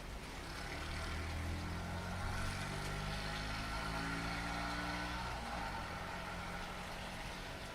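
A motor vehicle passes through steady rain. Its engine note holds steady for several seconds, then drops in pitch and fades about five seconds in.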